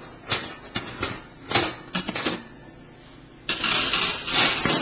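Metal oven rack being moved in the oven: a few sharp clinks and knocks, then a longer metal-on-metal scrape starting about three and a half seconds in.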